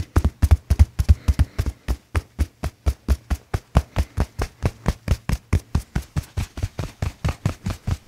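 Hands striking a person's back and shoulders in fast percussive hacking massage: a steady run of thudding slaps, about six a second, with a brief break about two seconds in.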